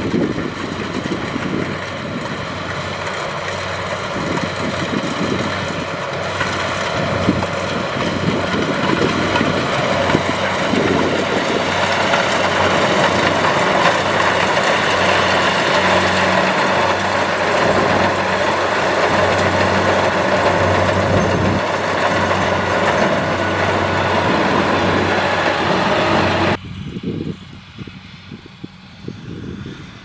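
Kubota DC70 rice combine harvester's diesel engine and machinery running steadily under load as it cuts rice, growing louder as it comes close. About 26 s in, the sound drops suddenly to a much quieter, more distant engine sound.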